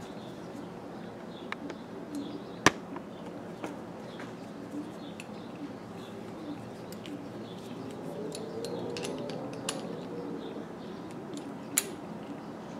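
Small metal clicks and taps from a paint spray gun and hand tools being handled on a work surface, with two sharper clicks, one about three seconds in and one near the end, over a steady low background hum.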